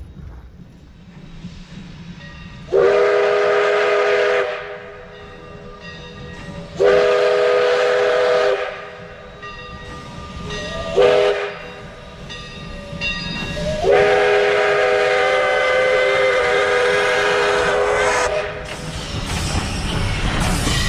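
WP 165 steam locomotive's chime whistle sounding the grade-crossing signal: two long blasts, a short one, then a final long one. Near the end the locomotive's wheels and running gear rumble past close by.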